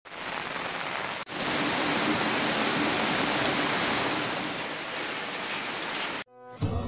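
Steady hiss of water, broken briefly about a second in, cutting off near the end as music begins.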